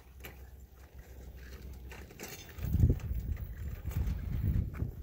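Faint outdoor background that turns, about two and a half seconds in, into a low, uneven rumble.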